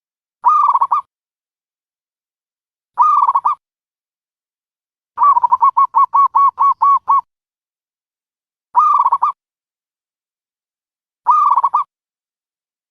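Dove cooing: short, identical calls repeated about every two and a half seconds, with a quick run of about nine rapid coos lasting some two seconds in the middle.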